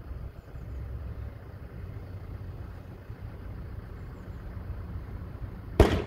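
Low, steady rumble of a diesel locomotive's engine as it approaches slowly. A sudden loud thump comes near the end.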